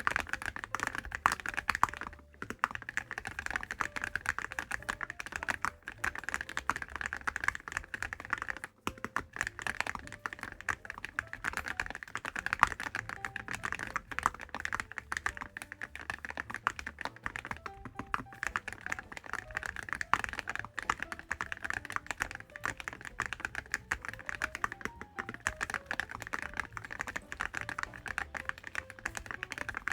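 Continuous fast typing on a mechanical keyboard fitted with Awekeys full-metal keycaps, a dense run of keystrokes with brief pauses about two, six and nine seconds in.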